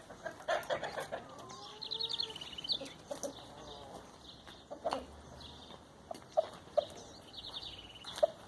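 Backyard chickens clucking and calling, with short clucks and drawn-out calls early on and scattered single clucks later. A rapid, high-pitched trill sounds twice, about two seconds in and again near the end.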